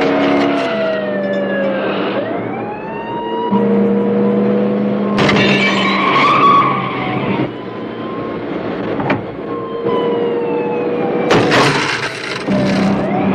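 Police siren wailing up and down over the steady running of a heavy army truck's and a police car's engines, with tyres skidding. Two loud crashes, about five and about eleven seconds in, as the truck rams the police car.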